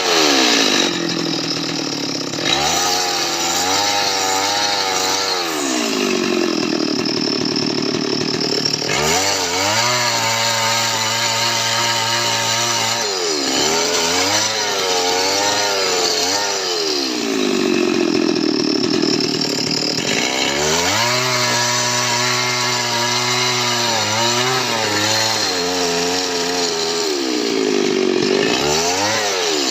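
Chainsaw cutting wood: its engine repeatedly rises to a high, steady whine when running free, then drops in pitch and wavers as the chain bites and loads it down in the cut.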